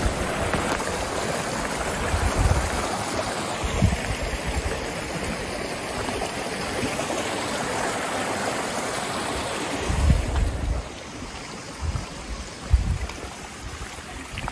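Steady rushing noise that drops away about eleven seconds in, with a few low thumps along the way.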